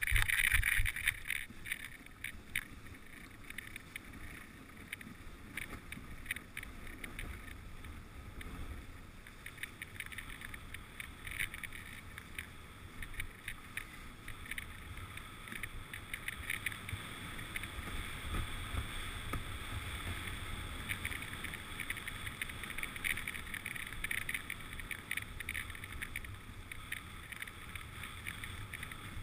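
Dog sled gliding over a packed snow trail: a steady scraping hiss from the runners, with irregular crunches and rattles from the sled, louder in the first second.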